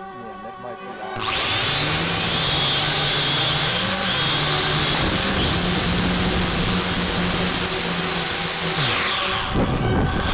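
Quadcopter drone's electric motors and propellers spinning up abruptly about a second in and running with a steady high whine and a low hum that shift in pitch together, then winding down with falling pitch near the end.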